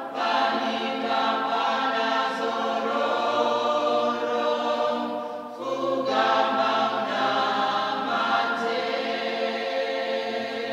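Small choir of men and women singing a hymn unaccompanied, in long held notes, with a short breath between phrases about halfway through.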